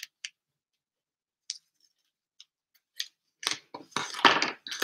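Scissors cutting through sticky grey tape in a few short, crisp snips. Near the end comes a louder spell of crackling and knocking as the scissors are set down on the table and the taped piece is handled.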